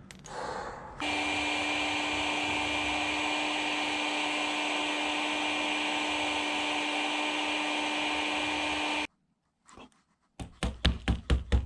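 A small electric motor with a fan runs steadily for about eight seconds and cuts off suddenly. Near the end comes a quick run of about seven sharp knocks.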